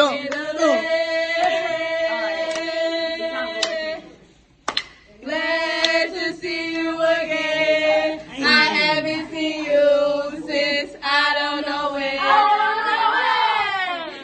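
A group of young women singing a chant together, holding long notes with pitch slides, with a brief break about four seconds in.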